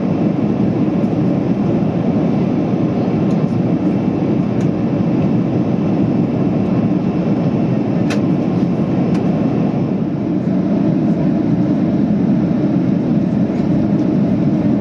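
Steady cabin noise of a jet airliner on its approach, its engines and the rushing air heard from inside the cabin at a window seat, with a faint tick about eight seconds in.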